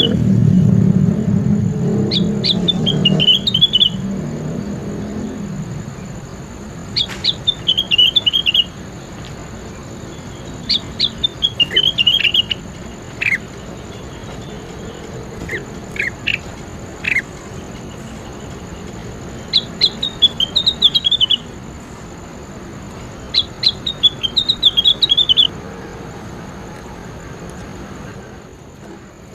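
Songbird singing short phrases of quick, high, falling notes, repeated every few seconds with single sharp notes in between. A low background sound fades out over the first five seconds.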